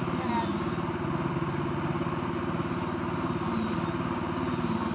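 A small engine running steadily nearby, an even fast pulse over a low hum that holds level throughout.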